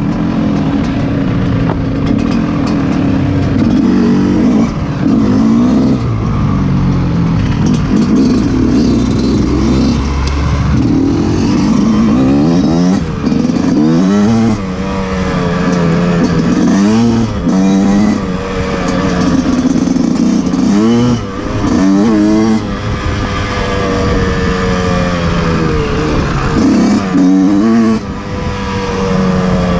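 Yamaha YZ125's two-stroke single-cylinder engine under way, its pitch rising and dropping back again and again as the throttle is worked and gears are shifted.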